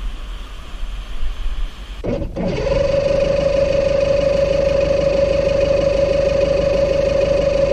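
A steady, loud mechanical whine with a fast even flutter, like a small motor running, starting abruptly about two seconds in after a short stretch of low noise.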